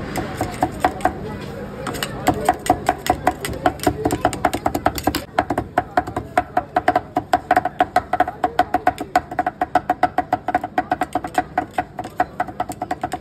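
Two cleavers chopping grilled kokoreç (lamb intestines) on a cutting board, the blades striking in turn in a fast, steady rhythm of several strokes a second. The strokes pick up about two seconds in.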